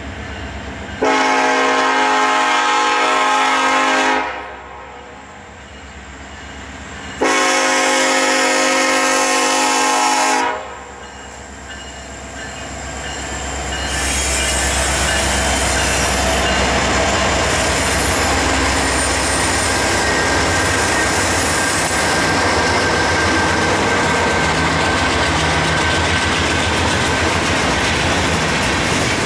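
Norfolk Southern EMD SD70ACe's multi-note air horn sounds two long blasts of about three seconds each for a grade crossing. About a dozen seconds in, the train passes close by: the diesel locomotives' rumble gives way to a steady clatter of freight car wheels over the rails.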